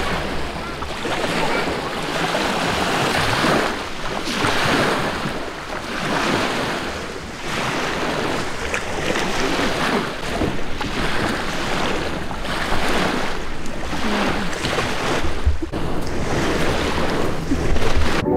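Small lake waves washing up onto a gravel shore, swelling and fading every second or two, with wind rumbling on the microphone.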